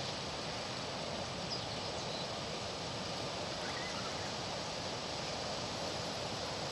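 Steady wind with rustling leaves: an even hiss that does not change.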